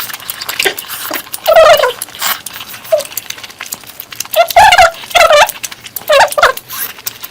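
Close-up eating sounds: wet chewing and mouth clicks. Over them come four short, high, wavering whines, which are the loudest sounds.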